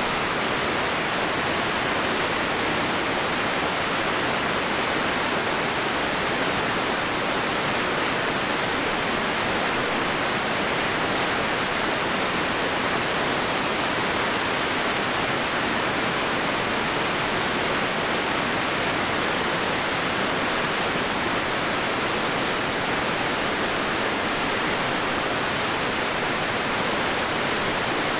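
Crystal River rushing over the falls below the mill: a steady, unbroken rush of whitewater.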